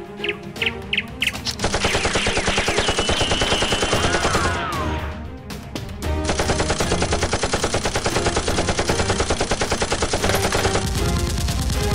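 Rapid automatic gunfire, machine-gun style, for Nerf blasters firing. It comes in a long burst starting about two seconds in, breaks briefly around five seconds, then comes in a second long burst. A high wavering tone sounds over the first burst.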